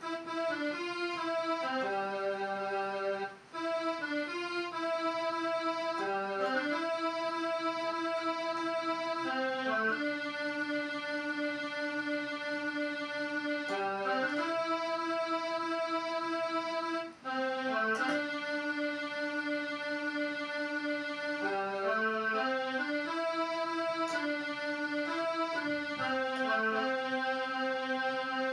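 Portable electronic keyboard playing a slow single-line melody, each note held steady rather than dying away, with two brief breaks between phrases.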